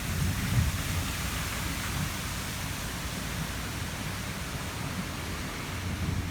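Steady rain falling, an even hiss, with a low rumble of wind on the microphone that is strongest in the first second.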